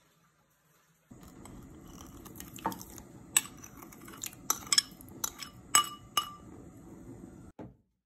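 Metal spoon clinking and scraping against a ceramic bowl as salt is tipped into a pot of water, a series of sharp clinks. Underneath is the steady low rush of a gas burner on high flame, starting about a second in and stopping shortly before the end.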